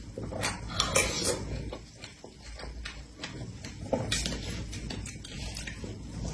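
Close-miked eating sounds: chewing and wet mouth sounds from a mouthful of strawberry, cream and sponge cake, with short irregular clicks. Near the end a metal fork digs into the cake.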